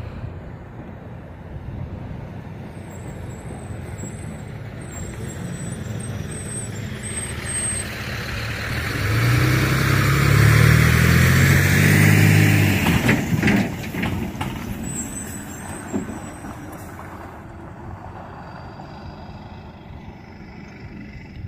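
A truck's engine drawing near, passing close with its pitch dropping as it goes by, then fading away, with a short clatter of knocks just after it passes.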